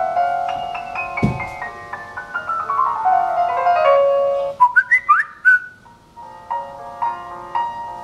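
Background piano music with stepped notes and a falling run, and a low thud about a second in. Around the middle the music breaks off briefly under a few short, rising whistled notes, then picks up again.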